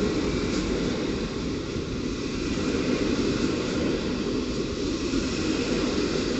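PKP Intercity passenger coaches rolling past along the platform track: a steady rumble of wheels on rails.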